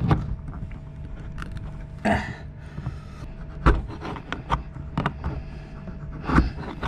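Metal spoon scraping and clicking against the rim of a tin can's lid as it is pressed and rubbed to try to cut the lid open, in irregular strokes with sharp clicks about every second or two.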